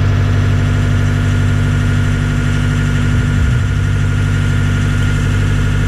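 Skid steer engine running steadily at a constant speed.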